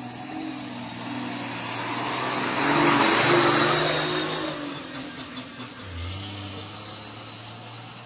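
A vehicle's engine running with road noise, while another vehicle goes past: a rush of tyre and engine noise swells to a peak about three seconds in, then fades away.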